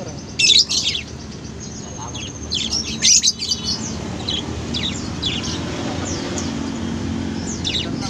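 Caged lovebirds chirping: sharp, high chirps in two loud clusters, about half a second and about three seconds in, then shorter scattered chirps, over a steady low background murmur.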